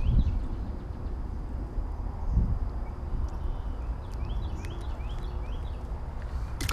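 Low rumble and rustling handling noise on the camera microphone while a bluegill is unhooked and held by hand, with a quick run of high chirps a little past the middle and a sharp knock near the end.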